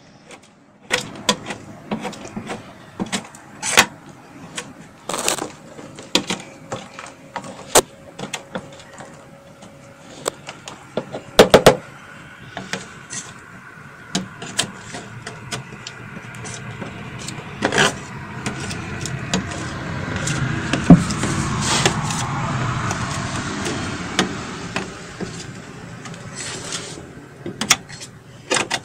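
A metal scraper scraping and knocking the leftover melted wax comb residue off a steam wax melter's perforated metal screen into a plastic tub: repeated sharp clicks and knocks, with a longer rasping scrape through the middle and latter part.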